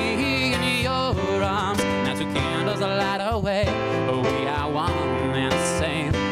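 Live song: a male voice singing a sustained melody with vibrato over a digital piano accompaniment.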